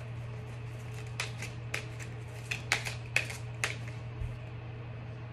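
A deck of oracle cards being shuffled by hand, a run of sharp card flicks and slaps bunched about one to four seconds in. A steady low hum sits underneath.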